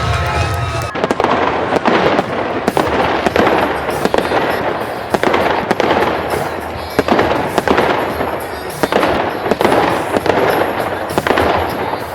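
Aerial fireworks show going off: rapid, repeated bangs and crackling, starting about a second in and continuing without a break.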